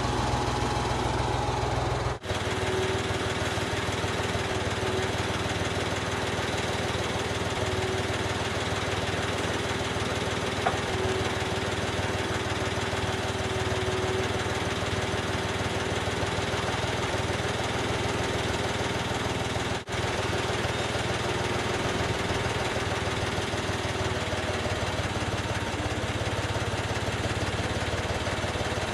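Case 580K backhoe's four-cylinder diesel engine running steadily, with a steady higher tone riding on it for much of the time. The sound cuts out for an instant twice.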